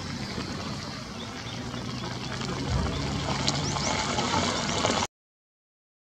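Scattered short, high bird chirps over the steady low hum of an idling vehicle engine; everything cuts off suddenly about five seconds in.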